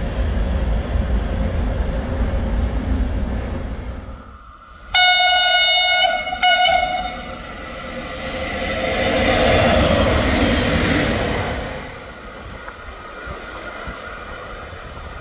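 Train on the main line through the station: a low rumble, then the locomotive's horn sounds twice about five seconds in, a long blast and a short one. A rush of train noise follows, swelling and then fading.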